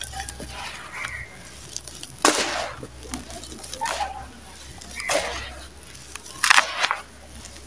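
Dry, gritty sand-and-cement mix crumbled in the hands and poured through the fingers into a plastic basin: irregular grainy crunching and the rustle of falling sand. There are louder bursts a little over two seconds in and again about six and a half seconds in.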